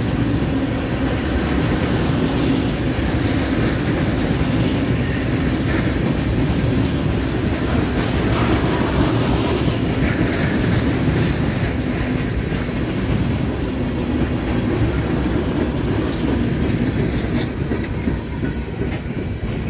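Rail train flatcars rolling past at a steady pace, a continuous rumble of steel wheels on the rails with light clickety-clack over the joints.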